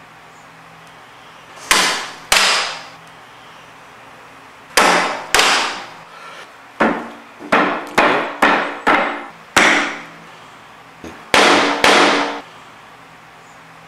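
Mallet blows on the plunger of a Primatech H330 manual flooring nailer, driving nails into floorboards: about a dozen sharp strikes, some in pairs and a faster run in the middle, each ringing briefly.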